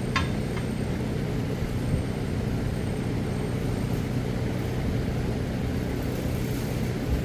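A steady low machine hum, with a metal clink just after the start and a fainter one half a second later as tire irons work the bead of a truck tire off its rim.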